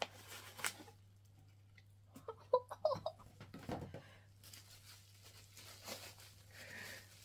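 Packaging being handled: a few sharp taps and knocks about two to three seconds in and a soft thud, then clear plastic wrapping rustling and crinkling as a boxed teapot is unwrapped.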